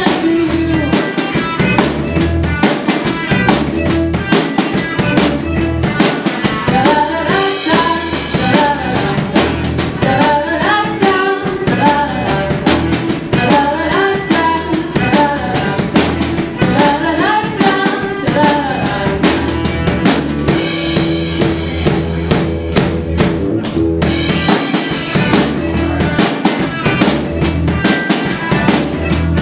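Live rock band playing with a steady drum-kit beat, kick drum and snare prominent. Electric guitars, keyboard and violin play alongside, and a melody line weaves through the middle of the passage.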